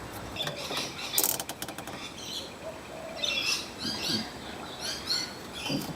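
A quick rattling run of small metallic clicks about a second in, as a fuel line clip is worked onto the fuel filter's pipe. Birds chirp repeatedly in the background through the second half.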